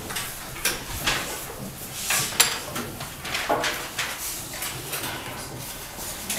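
Classroom bustle: scattered knocks and scrapes of wooden desks, chairs and drawing things, irregular throughout, with children's voices now and then.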